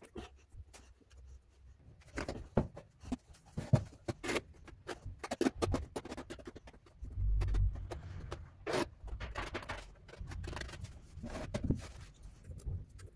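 Trowel spreading and combing tile adhesive on a shower floor: irregular scrapes, slaps and taps of the blade in the mortar, with a heavier low rumble for about a second midway.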